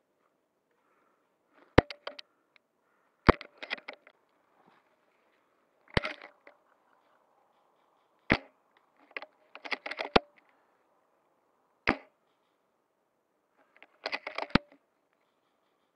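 Airsoft guns firing: about seven sharp cracks, one every second or two, several followed by quick runs of smaller clicks.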